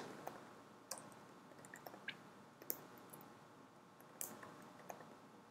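Faint, sparse computer keyboard keystrokes: a handful of isolated clicks a second or so apart against near silence.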